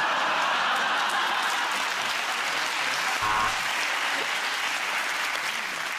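Studio audience and panellists applauding, dying down near the end.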